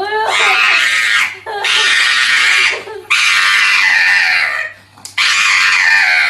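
An animal screaming loudly four times in a row, each harsh scream lasting over a second.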